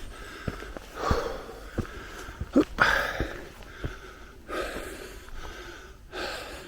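A walker breathing hard while climbing a forest path uphill, a loud breath about every second and a half, with regular soft footfalls in between.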